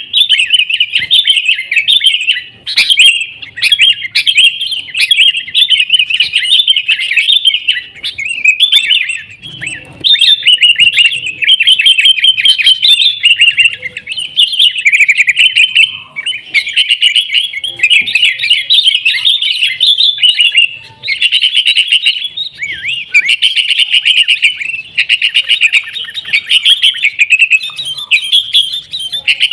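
Sooty-headed bulbuls (kutilang) singing in a busy, continuous run of rapid chattering notes, the excited 'gacor' song used to lure or train other bulbuls.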